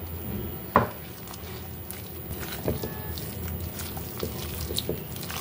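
Hands squeezing and mixing sliced onions into a thick gram-flour (besan) batter in a glass bowl: soft wet squishing and small clicks, with one sharp tap about a second in, over a low steady hum.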